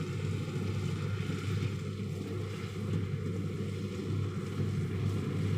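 Kubota DC-60 combine harvester's diesel engine running steadily as the machine works, a smooth, even hum with wind on the microphone.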